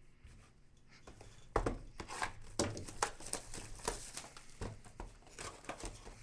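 Trading-card packaging being torn open and crinkled, with cards handled: a run of irregular crackles and light taps.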